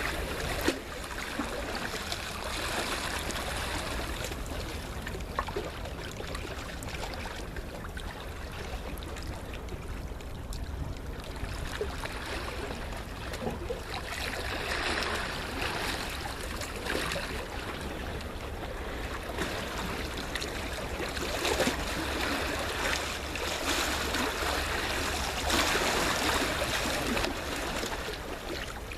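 Sea waves washing onto the shore, a continuous rush of water that swells and eases every several seconds, with small crackles of water running over the beach.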